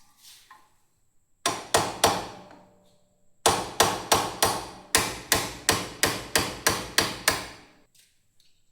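Hammer blows driving out the pin that holds the pads in a motorcycle rear brake caliper: three taps, a short pause, then a quick run of about a dozen blows, roughly three a second, each ringing briefly.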